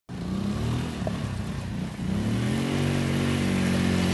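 Quad bike (ATV) engine running. It eases off, then revs up about two seconds in and holds a steady higher note.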